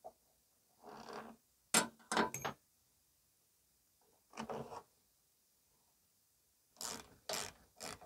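Scattered short clicks and scrapes of a screwdriver turning the mounting screws of a plastic mower airbox, with a sharp click about two seconds in and three quick clicks near the end.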